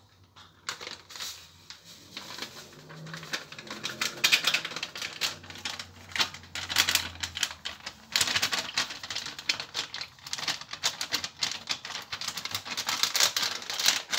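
Rapid clicking and rustling of a paper packet being shaken and tapped as powder pours into a glass blender jug.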